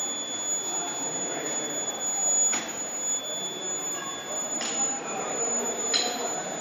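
100 kW IGBT induction melting furnace running under power, giving a steady high-pitched whine over a mechanical hum. Three sharp clicks sound during it.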